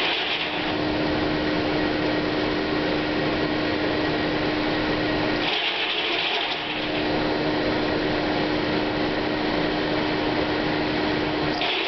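Corn grain dryer running steadily, a dense machine noise with a steady hum. About every six seconds a hiss lasting roughly a second cuts in: once right at the start, once about halfway through, and again at the end.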